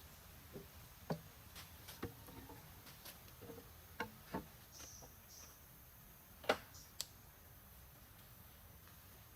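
Scattered light clicks and knocks, about a dozen at uneven intervals, the loudest about two thirds of the way in.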